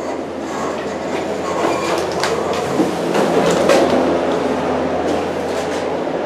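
Steady rumbling machinery noise with a low hum, and a few footsteps on a concrete floor.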